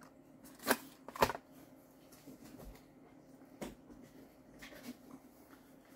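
Small product boxes and packaging being handled, put down and picked up: a few short knocks and rustles, the two loudest about a second in and another near the middle.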